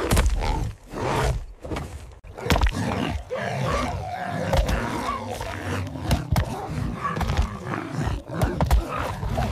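Animals snarling and roaring in a fight, with sharp hits and thuds throughout. Over the second half, pitched snarls and cries rise and fall.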